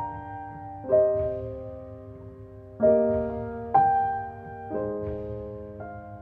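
Slow background piano music: a chord struck about every second or two, each left to ring and fade.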